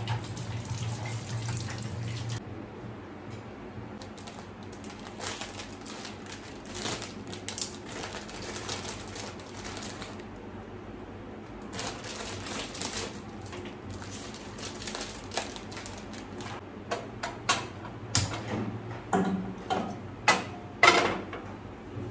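Water from a tap running into a sink in uneven spurts, with scattered clicks and clinks of things being handled; the loudest knocks come near the end.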